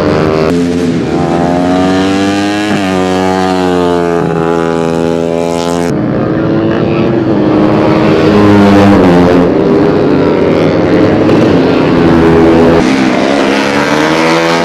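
150cc four-stroke underbone race motorcycles' engines at high revs, the pitch climbing and dropping several times as the riders shift gears and ease off. About six seconds in, the sound changes abruptly to a denser mix of engines.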